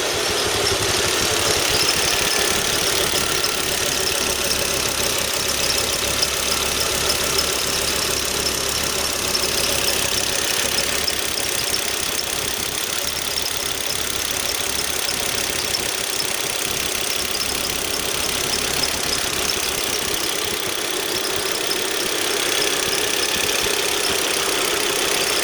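Volvo XC90 T5's turbocharged five-cylinder engine idling steadily, heard up close at the auxiliary drive belt, which the owner says is squeaking.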